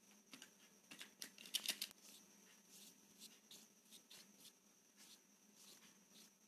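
Faint scratchy strokes of a paintbrush on watercolour paper, with a short cluster of louder ticks about a second and a half in.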